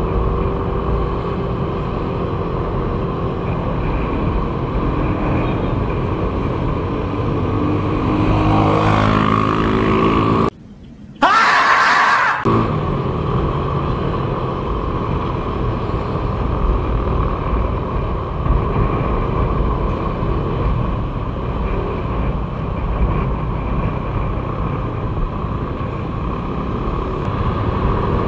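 Yamaha Mio scooter under way, heard from a helmet camera: a steady engine drone with heavy wind and road rumble, the engine note rising as it speeds up several seconds in. About ten seconds in, the rumble briefly cuts out and a short hiss takes its place.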